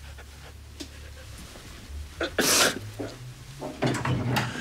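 A grieving man sobbing: a loud, sharp gasping breath a little past halfway, then a crying voice near the end.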